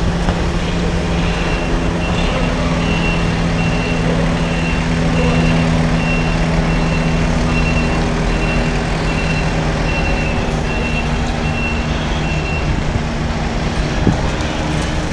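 A vehicle's reversing alarm beeping about twice a second over a steady low mechanical hum; the beeping stops a couple of seconds before the end.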